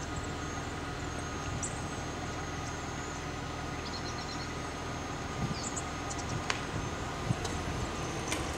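Car running, heard from inside the cabin: a steady engine and road hum, with a few faint clicks.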